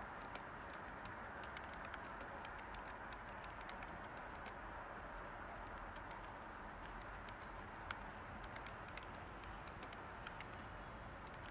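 Light typing on a computer keyboard, irregular soft key clicks, over a steady hiss of white noise.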